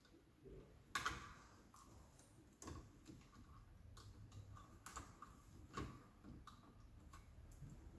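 Faint, scattered small clicks and rustles of electrical wires being handled and fed into the terminals of a small plastic wiring module. The sharpest click comes about a second in, and a few more follow at irregular intervals.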